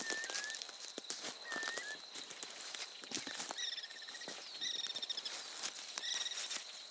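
Birds singing: a couple of short whistled notes early, then three short trilled phrases between about three and a half and six and a half seconds in. Frequent sharp crackling ticks and a steady high, thin tone run underneath.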